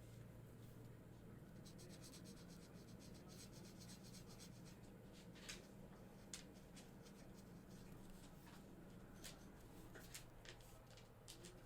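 Felt-tip marker scratching on paper in a quick run of back-and-forth colouring strokes, followed by scattered light ticks and taps. The whole sound is faint, over a low steady hum.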